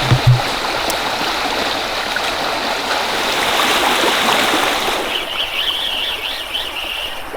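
River water rushing steadily over riffles. In the last two seconds a high wavering warble sounds over the water.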